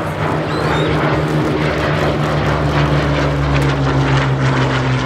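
Hawker Hurricane's Merlin V12 engine and propeller running steadily as the fighter flies past, the engine note sliding slowly lower in pitch.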